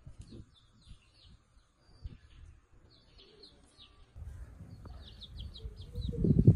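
Small birds chirping in quick, short repeated notes. A low rumbling noise builds up over the last couple of seconds and becomes the loudest sound.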